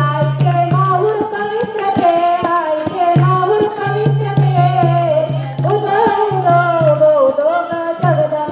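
A woman singing a devotional bhajan through a microphone and loudspeaker, with jingling hand percussion keeping a steady beat.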